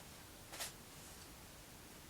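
Near silence: quiet room tone with one faint short click about half a second in.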